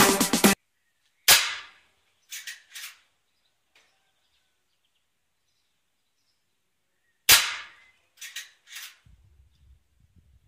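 Music cuts off, then a Winchester air rifle fires twice, about six seconds apart, each a single sharp crack. About a second after each shot come two fainter clicks.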